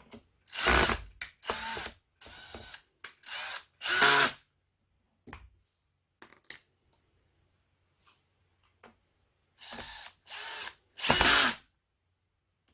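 Small electric screwdriver running in short bursts, five in quick succession and then three more near the end, each lasting under a second.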